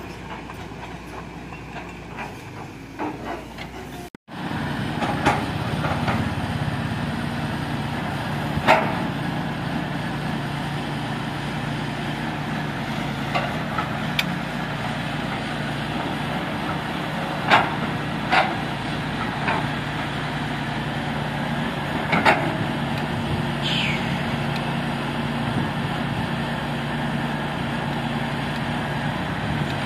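CAT 320C tracked hydraulic excavator's diesel engine running steadily while digging, with sharp knocks and clanks of the bucket and steel striking earth and stones every few seconds. The sound cuts out briefly about four seconds in and comes back louder.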